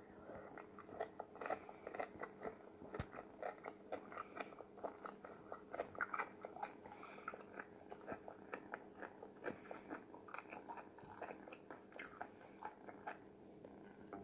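Close-up, irregular clicking and tapping of a kitten's paws and claws on a smartphone's glass screen, several light clicks a second over a faint steady hum.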